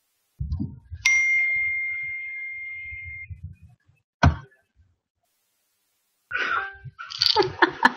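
A single bright ding: a clear ringing tone that starts sharply about a second in and fades out over about two seconds, over low rumbling handling noise. A sharp knock follows about four seconds in.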